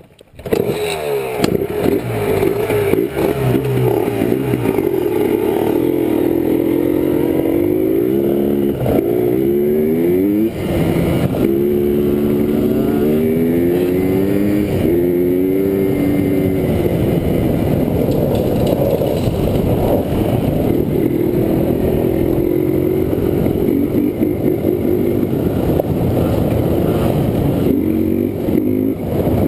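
Yamaha Blaster's two-stroke single-cylinder ATV engine running under throttle as the quad rides along, its pitch climbing and dropping back several times between about 8 and 16 seconds in.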